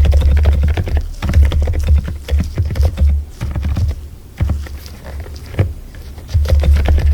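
Rapid typing on a mechanical keyboard, a stream of irregular key clicks, over background music with a heavy bass line that drops out for about two seconds from around four seconds in.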